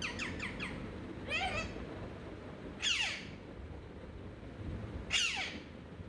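Alexandrine parakeet squawking: a quick run of short falling calls at the start, then single harsh screeches that drop in pitch, about one and a half, three and five seconds in.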